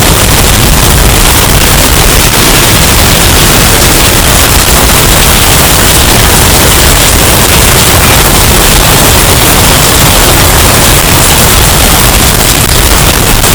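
Hurricane wind sound effect, bass-boosted and overdriven into heavy distortion: a steady, very loud wall of noise with no let-up.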